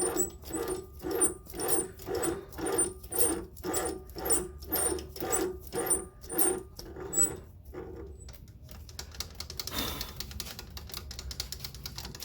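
Small metalworking lathe taking a screw-cutting pass on a 5 mm, 0.8 mm pitch thread, turning slowly with an even pulse about twice a second. The pulsing stops about seven and a half seconds in, leaving a quieter steady hum with faint ticking.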